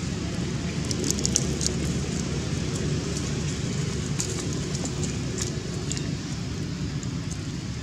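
Dry fallen leaves crackling and rustling in short scattered bursts over a steady low rumble, as macaques move over leaf-littered ground.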